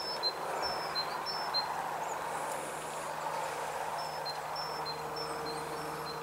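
A steady hiss with short, high-pitched chirps repeating every half second or so, like a background of birds or insects.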